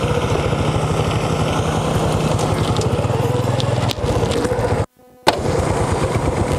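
A small engine running steadily, with a low even hum. About five seconds in the sound drops out to near silence for a moment, then the same noise resumes.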